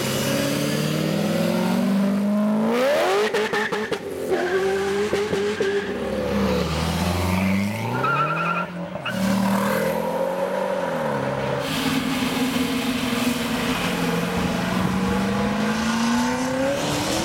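Several car engines revving and accelerating past one after another, their pitch climbing and dropping several times as each pulls away.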